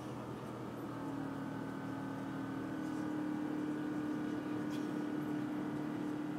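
Airliner jet engines heard inside the cabin during the climb after takeoff: a steady rushing drone, with a hum that comes in about a second in, rises slightly in pitch and then holds steady.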